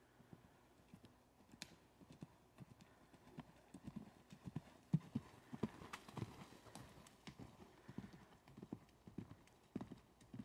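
Hoofbeats of a grey horse cantering on a dirt track, a steady run of dull thumps that grow louder as the horse passes close by about halfway through, then fade as it moves away.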